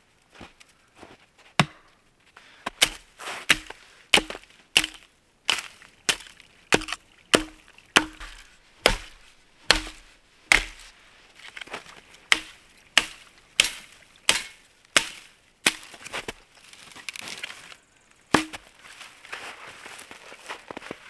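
Hatchet chopping wood: a steady run of sharp blows, about one and a half a second, each with a short hollow wooden ring, broken by a brief pause. A few lighter knocks come before the run, and one last blow falls near the end.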